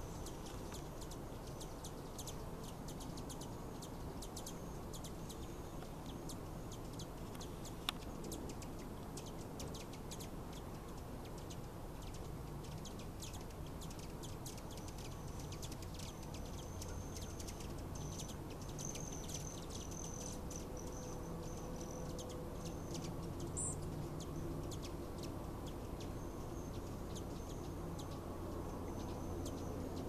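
Hummingbirds around a nectar feeder: a steady patter of tiny high ticks and chips, with a thin, high buzz that comes and goes, mostly in the second half.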